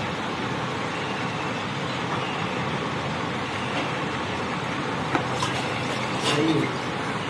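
Steady, even background noise with no speech, and a few light clinks of steel utensils being handled about five and six seconds in.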